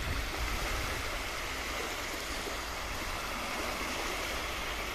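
Small waves of the Adriatic washing onto a sandy beach: a steady wash of surf.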